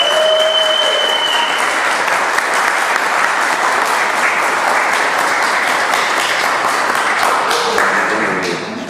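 A small crowd of guests applauding in a hall with hard floors, dying away just before the end.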